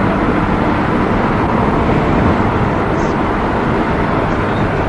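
Steady road and wind noise of a moving car, heard from inside the car.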